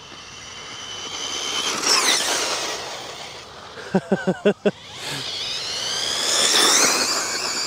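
ARRMA Typhon 6S V5 RC buggy's brushless motor and drivetrain whining at speed, swelling and sweeping in pitch as the buggy goes by twice, about two seconds in and again near the end. A short rapid stutter of pulses comes about four seconds in.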